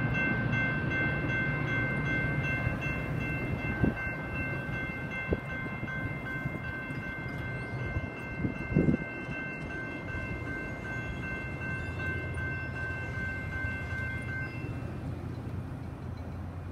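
Metra commuter train rumbling as it pulls away, fading out, with a few knocks along the way. A grade-crossing bell rings steadily and stops about fifteen seconds in.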